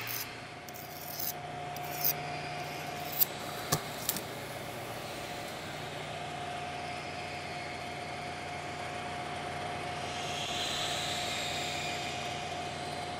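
A steel knife blade scraped a few times along a sharpening steel, then sharp knocks as the knife is stabbed into a wooden chopping stump. After that a steady hum.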